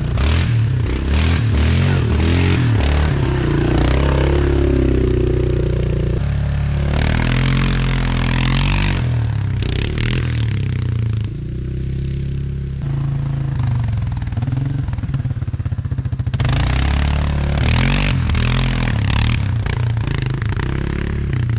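Vehicle engine revving up and easing off over and over, as if under changing load, with two longer stretches of rushing, hissing noise about a third of the way in and again near the end.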